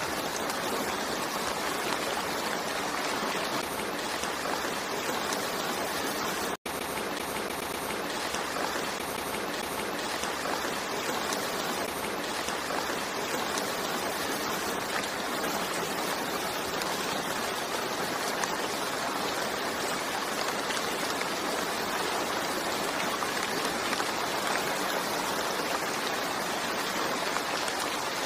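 Steady rainfall, an even hiss of water with no letup, cutting out for an instant about six and a half seconds in.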